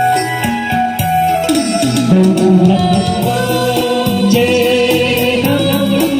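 Vietnamese Bắc Ninh quan họ folk song: a sung line with wavering held notes over instrumental accompaniment.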